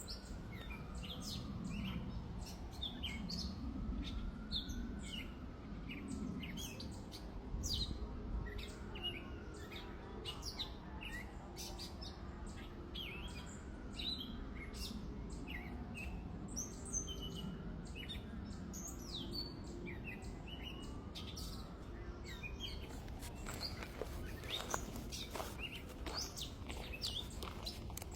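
Several small birds chirping and calling from a tree, with many short, quick chirps throughout. Under them a softer tone rises and falls over and over, about every three to four seconds, over a steady low background rumble.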